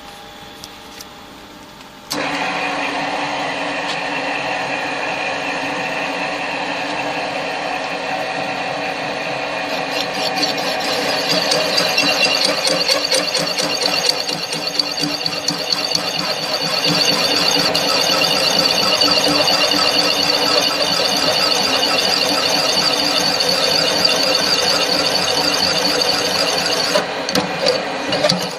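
Homemade circle cutter in a drill press cutting a circular groove into a metal plate: a loud, steady metallic squeal made of many ringing tones. It starts suddenly about two seconds in as the cutter bites, and grows louder and shriller from about ten seconds in.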